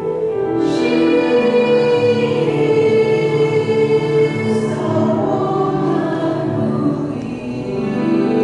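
Women's chorus singing a slow, chant-like passage in long held chords that shift slowly.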